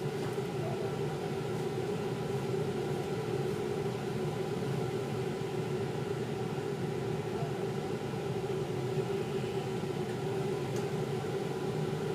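Steady machine hum with a few held low tones, unchanging throughout.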